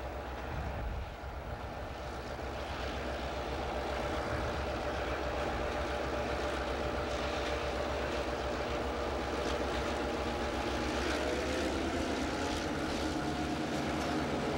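EMD GP9 diesel locomotives, each with a two-stroke 16-cylinder 567 engine, pulling a loaded stone train, their engine drone growing steadily louder as they approach. Clicking wheel and rail noise joins in during the second half.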